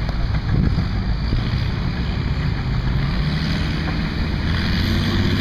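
Minneapolis-Moline G705 tractor engine running hard under load as it drags a weight-transfer pulling sled, with exhaust smoke pouring from the stack. Loud and steady, its pitch shifting only slightly.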